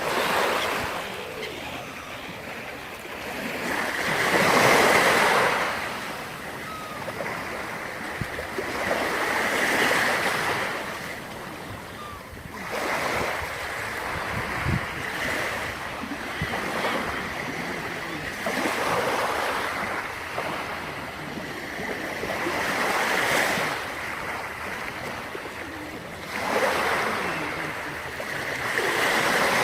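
Sea waves breaking on the shore: a surge of surf every four to six seconds, each rising and falling back into a steady wash between them.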